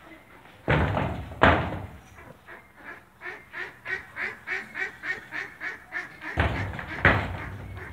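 A fast run of duck-like quacks, about three a second, through the middle of the clip. Heavy bangs come twice in the first second and a half and twice more near the end.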